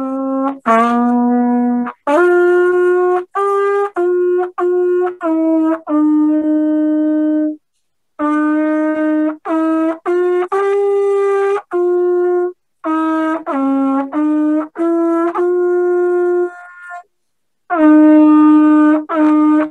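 A young brass learner playing a simple melody on a cornet, one tongued note after another in short phrases, with brief pauses between phrases about eight and seventeen seconds in.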